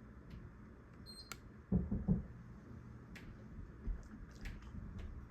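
Casablanca ceiling fan with its XLP 2000 motor running on speed 2: a faint, steady low hum and air noise, with a few light clicks. About a second in there is a short high-pitched tone, and near two seconds a brief, louder low sound.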